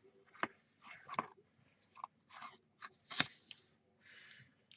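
Washi tape being pulled and torn off for the assembly, with light clicks and taps as the organiser's pieces are handled; the sharpest click comes about three seconds in.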